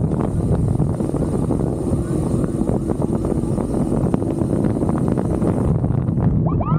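Wind buffeting the microphone over a motorcycle engine running at road speed, a steady rushing din. Near the end, a few short rising chirps cut through.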